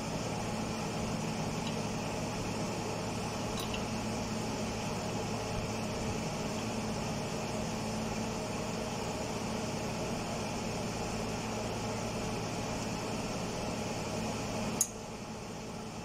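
Steady electric hum of a running fan, with a few faint metallic ticks. Near the end a click, and the hum drops and gets duller as part of it cuts off.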